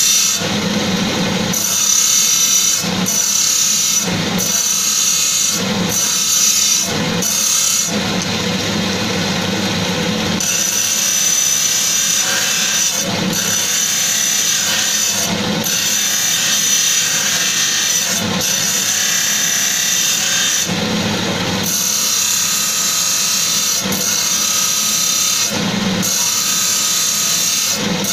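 Motor-driven lapidary polishing wheel running with a steady high whine while a turquoise stone is pressed against it, giving a loud grinding rub. The grinding breaks off briefly every few seconds as the stone is lifted and set back, once for about two seconds.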